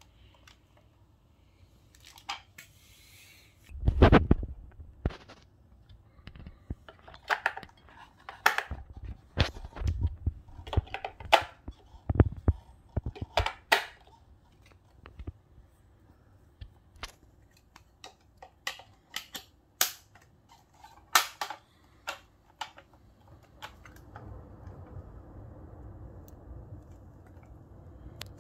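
Hard plastic lantern parts handled by hand: a string of separate clicks, taps and knocks as the base's battery cover is taken off and the base is twisted back on, with a heavy thump about four seconds in. A faint steady noise comes up near the end.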